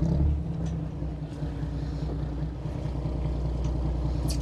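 Fishing boat's engine running steadily, a low hum under the deck, with a few light clicks near the end.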